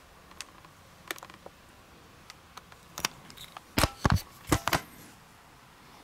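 A string of sharp clicks and knocks, a few scattered ones and then a louder cluster of several about four seconds in.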